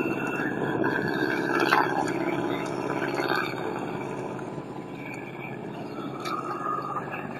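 A small boat's engine running steadily, with a low droning hum that eases off slightly about halfway through, and a few light knocks.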